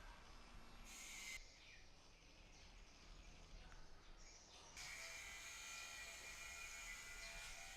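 Near silence: faint background hiss that changes abruptly twice.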